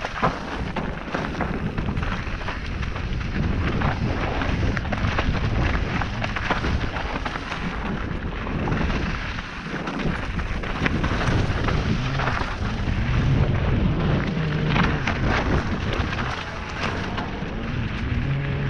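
Mountain bike riding fast down a gravel and dirt singletrack: wind rumbling on the action camera's microphone and tyres crunching over the trail, with frequent clicks and rattles from the bike over rough ground.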